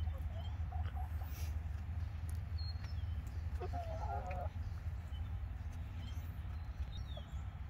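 Hens clucking quietly, with one short wavering call about four seconds in, over a steady low rumble.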